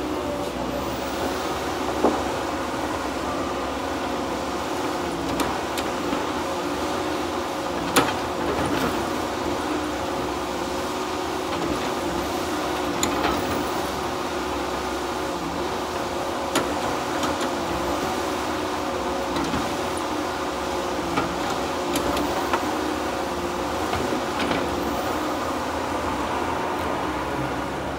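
Diesel engine of a Tigercat 234B knuckleboom log loader running steadily under work, with a few sharp knocks, the loudest about two and eight seconds in, as its grapple handles logs.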